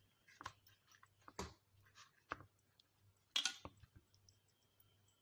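Hands pressing and turning raw chicken pieces in a seeded flour coating: a handful of soft, irregular taps and crinkles, the loudest about three and a half seconds in.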